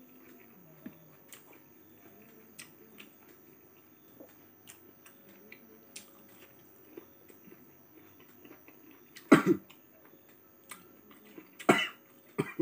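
Close chewing and small wet mouth clicks of a person eating by hand. In the last few seconds come three loud short coughs, the first the loudest.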